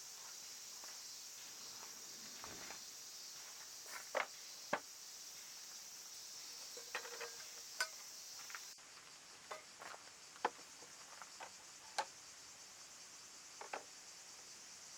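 A steady, high-pitched chorus of insects that cuts off abruptly a little over halfway through. Over it, scattered light clicks and knocks, about a dozen in all, from things being handled.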